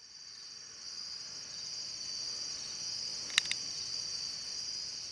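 Crickets chirping in a steady high trill that fades in over the first second, with two quick sharp clicks about three and a half seconds in.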